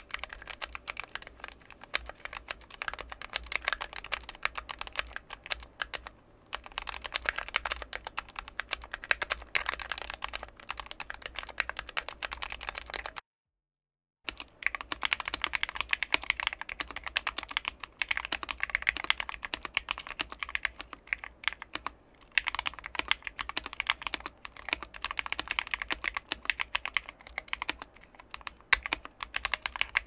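Fast continuous typing on mechanical keyboards, a dense stream of key clicks. About 13 seconds in, a one-second silent break separates two boards: first a different 60% mechanical keyboard, then a GK61 60% board with optical red linear switches, a thin aluminium plate and PBT keycaps, built with no sound dampening.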